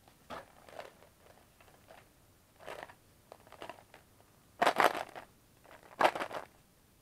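Handling noise as a plastic jar of chocolate hazelnut pralines is lifted out of a cardboard box and turned in the hands: short rustling and knocking bursts, the two loudest about two-thirds of the way through.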